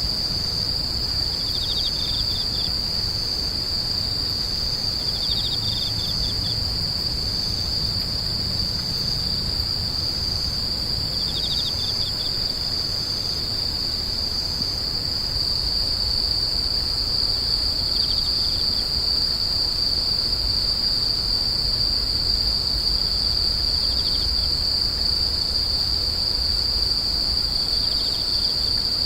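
Grass insects singing: one keeps up a steady, unbroken high-pitched trill. A second one adds short pulsed chirps, slightly lower, every few seconds. A faint low rumble sits underneath.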